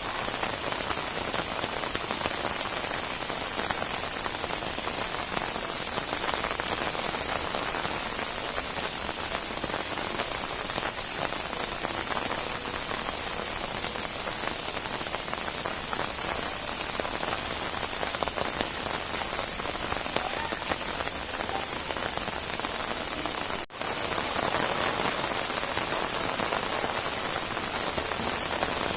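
Steady rain falling, a dense even hiss of many drops. It cuts out for an instant about three quarters of the way through, then carries on.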